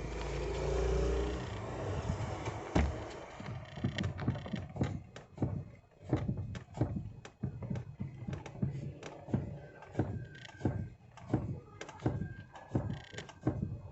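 Repeated knocking from the steering column of a 1998 Chevrolet Corsa pickup as the steering wheel is worked, a long series of uneven knocks about one to two a second. The knock comes from the steering column's bolt left loose at the joint, not from the steering box.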